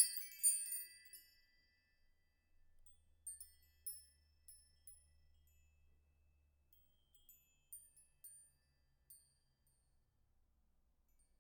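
Faint background music of scattered high chiming notes, like a glockenspiel or music box, that thin out and stop near the end.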